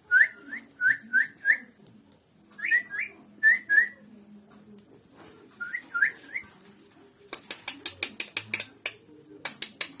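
Whistling: short rising notes repeated in quick runs of four to six, with pauses between the runs. From about seven seconds in it gives way to a string of rapid, sharp clicks.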